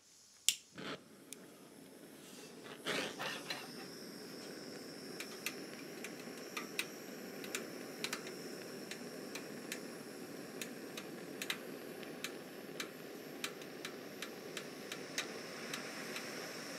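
Hand-held gas blowtorch lit with a short burst about three seconds in, then burning with a steady hiss. Light metallic ticks come every half second or so as an aluminium welding rod is worked into an aluminium joint preheated on a hot plate; the torch adds the last bit of heat that melts the rod.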